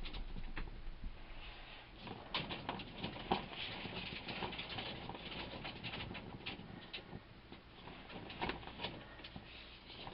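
Wet dirt crumbling and falling into a hole as a garden hose sprays water on it, heard as irregular ticks and crackles over a faint hiss: soil being washed down to backfill around a copper geothermal ground loop.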